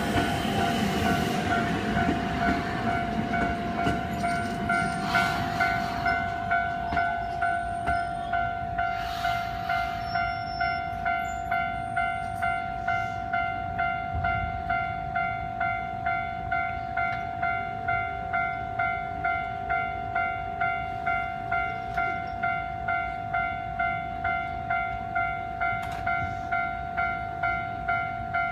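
Japanese level-crossing warning bell ringing, a steady electronic tone that pulses about three times every two seconds. In the first couple of seconds the noise of a passing train fades away under it.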